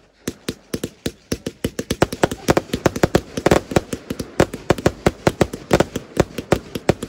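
Large fireworks display: a rapid string of sharp bangs, a few at first and then several a second from about a second and a half in.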